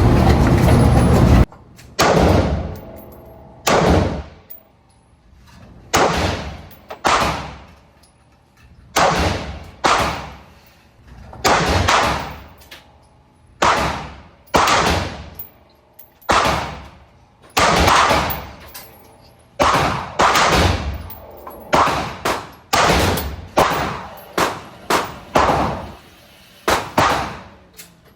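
Gunshots fired one at a time at an uneven pace of about one a second, some two dozen shots, each followed by a ringing decay. Before the first shot, a loud steady car noise cuts off about a second and a half in.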